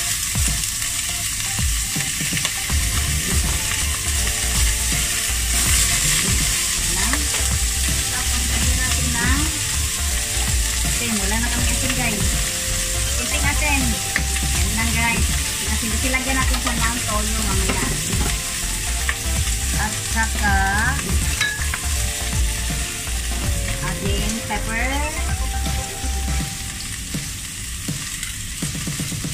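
Pork belly pieces sizzling steadily as they fry in a hot pot.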